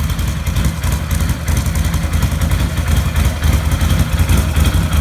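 ATV engine idling through an aftermarket RJWC Mud Edition single slip-on exhaust, a loud, fast, steady low pulsing.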